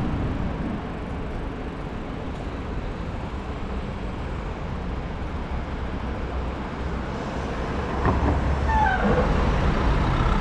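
Steady rumble of city street traffic, with a heavy vehicle drawing close and louder about eight seconds in. A few brief high squeals come with it.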